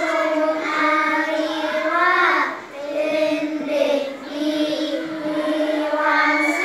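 A group of children reading a Thai text aloud in unison, in long, level-pitched chanted phrases with short breaks between them.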